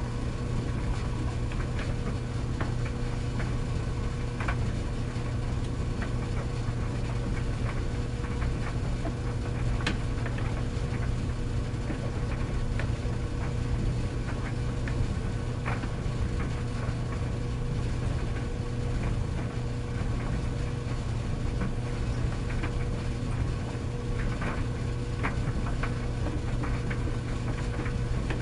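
Tumble dryer running steadily: a low motor hum and drum rumble with faint irregular ticks and taps as the load tumbles.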